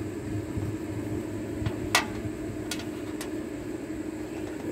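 A steady background hum with a few sharp clicks, the loudest about two seconds in and two fainter ones soon after: tools and hands at work on a riding mower's battery.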